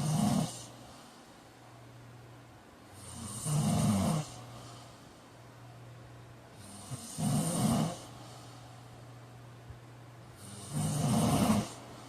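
A man snoring: the end of one snore just as it starts, then three more, each about a second long, coming about every three and a half seconds. A low steady hum runs underneath.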